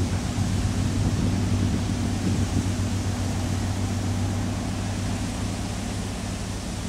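Low, steady engine hum of a passing general cargo ship, slowly fading as the vessel moves away, over a light hiss.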